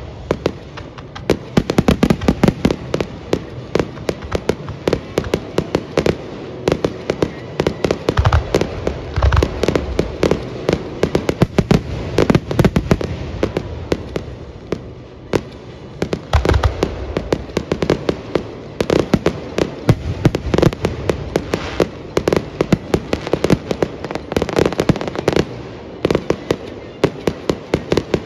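Aerial fireworks display: a dense barrage of shell bursts, many bangs a second, one after another with no real pause.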